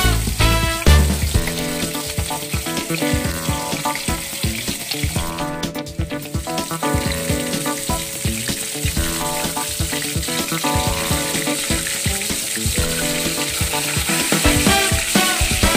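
Tilapia pieces frying in hot oil in a steel wok, a steady sizzle and crackle, while metal tongs turn the fish in the oil.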